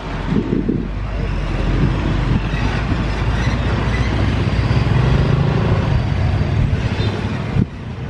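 Road traffic passing close by: a small pickup truck and then motor scooters and motorcycles go past with their engines running, the engine hum growing louder toward the middle and breaking off abruptly near the end.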